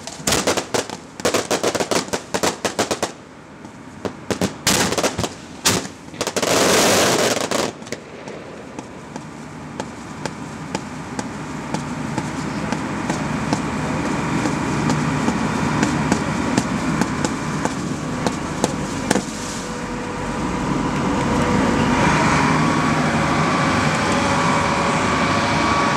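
Fireworks going off: a rapid string of bangs and crackles for about the first eight seconds, ending in a dense crackling burst. Then the firing stops and a steady noise slowly builds, with scattered faint pops.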